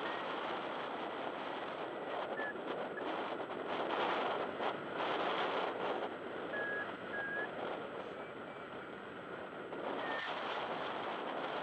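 Wind rushing over the microphone of a paraglider in flight, with a few short high beeps from the pilot's flight variometer scattered through.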